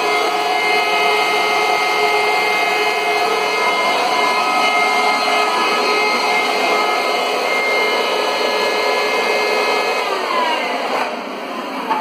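Hoover Runabout Deluxe upright vacuum cleaner's 12-amp motor running: a very loud, steady whine with several fixed tones over a rushing noise. About ten seconds in, the whine falls in pitch and fades as the motor slows down.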